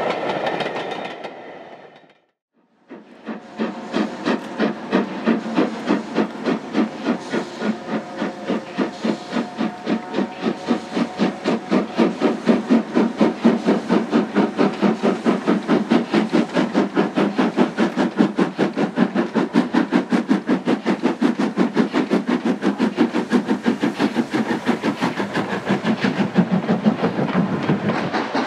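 Carriages rolling past and fading away, then after a short gap an LMS Jubilee class 4-6-0 steam locomotive, a three-cylinder engine, working hard up the line with its train. Its exhaust beats come rapidly and evenly, building a little in loudness as it approaches.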